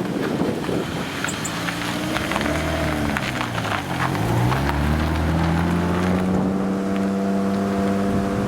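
A motor vehicle's engine running. Its pitch dips and climbs again about four seconds in, then holds steady, with scattered clicks and light wind noise on the microphone.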